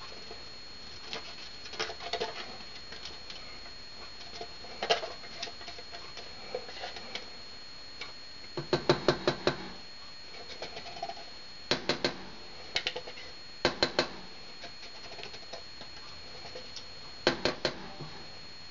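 A spatula scraping ketchup out of a glass measuring cup into a saucepan, with groups of quick clicking taps against the glass and the pot rim.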